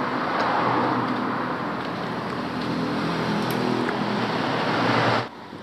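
Steady rushing background noise, like road traffic or a running fan, with a couple of faint clicks. It cuts off abruptly near the end.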